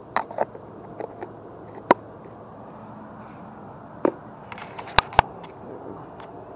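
Handling noise from the angler moving about with his gear on the rock: a dozen or so sharp clicks and taps at uneven intervals, with two of the loudest close together about five seconds in, over a steady low hiss.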